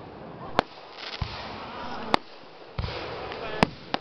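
Aerial fireworks bursting overhead: four sharp bangs and two duller low booms in four seconds, with a crackling hiss between them.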